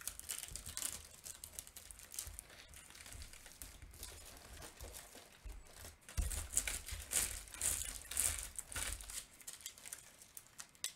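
Thin plastic packaging crinkling and rustling as a rolled diamond-painting canvas is handled, with dull handling bumps; the rustling grows louder about six seconds in.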